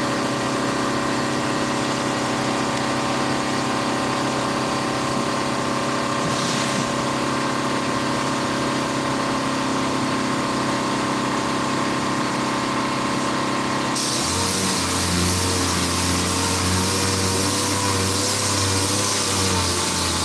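Steady hum of shop machinery. About fourteen seconds in, a power sander starts up on the body filler, adding a strong hiss and a wavering whine.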